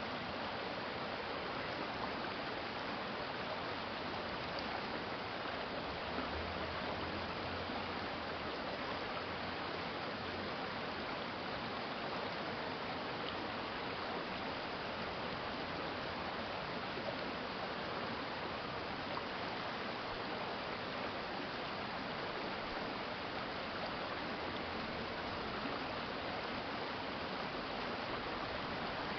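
Urban stream water flowing steadily over a shallow bed, a continuous rushing babble with no breaks.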